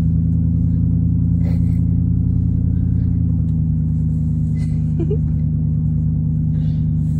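Steady low drone of a vehicle's engine and road noise heard from inside the cabin while driving.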